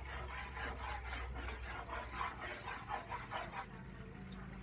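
Rhythmic scraping strokes, about three a second, from hand work at a kitchen counter; they stop shortly before the end. A low steady hum runs underneath.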